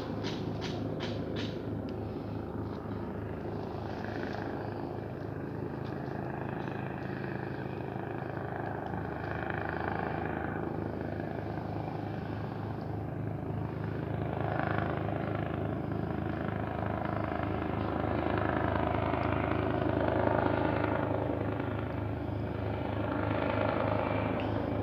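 Steady engine drone with a low, evenly pulsing hum, growing a little louder in the second half.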